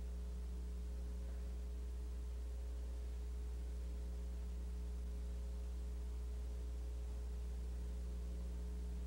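Steady low electrical hum with a few fainter steady higher tones over light hiss, unchanging throughout; no singing or piano.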